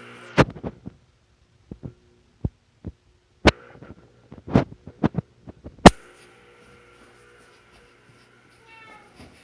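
A run of sharp, irregular knocks and thumps, about fifteen in six seconds, over a steady low hum. Near the end comes a short squeak that rises in pitch.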